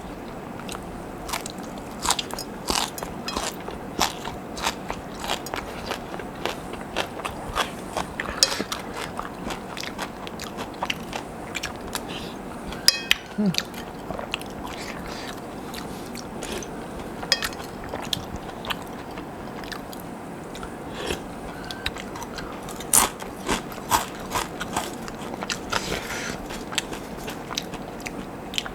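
Someone chewing and crunching crispy fried potato sticks with a meal: irregular sharp crunches, a few every second or two, between quieter chewing.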